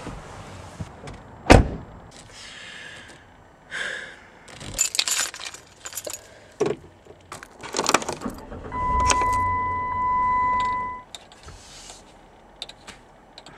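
Sounds of getting into a car: the driver's door shuts with a thump, then keys jangle and click, and a steady electronic beep tone sounds for about two seconds.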